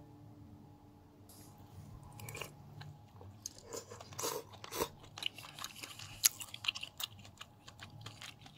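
Close-up eating sounds: a metal spoon clinking and scraping in a ceramic soup bowl, with chewing. They come as small irregular clicks starting about a second in.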